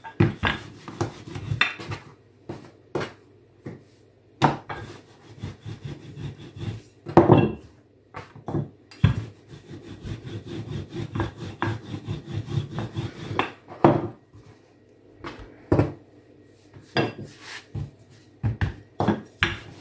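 Wooden rolling pin rolling out a thin round of flour-dusted dough on a kitchen countertop: a low rolling rumble in long stretches, broken by many sharp wooden knocks and taps as the pin is lifted, set down and the dough handled.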